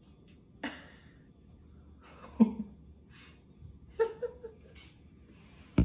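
A few brief, quiet chuckles and breaths from a couple, in short separate bursts; the loudest comes about two and a half seconds in, with room tone between.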